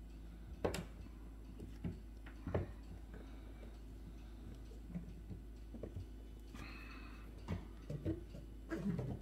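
Light taps and clicks of a small pre-painted miniature stall being fitted together by hand and set down on a paper-covered table, with a short rustle a little past two-thirds of the way through and a cluster of clicks near the end.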